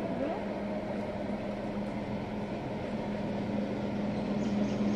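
Steady mechanical drone with a low, constant hum, growing a little louder near the end.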